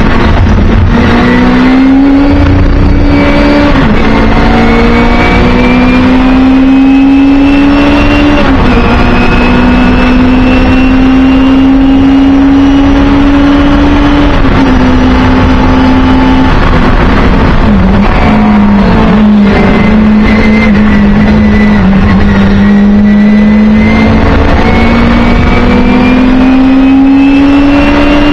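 Singer Chamois race car's rear-mounted Hillman Imp four-cylinder engine, heard from inside the cabin, pulling hard. Its pitch climbs and then drops sharply several times as it changes up through the gears, with a dip in the middle where it eases off for a corner before pulling up again.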